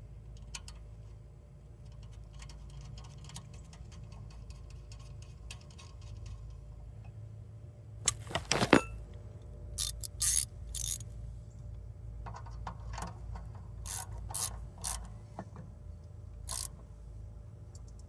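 Hand ratchet wrench clicking and metal tools clinking while the nuts on a starter's battery cable terminals are tightened, with a quick cluster of sharp metal clanks about halfway through.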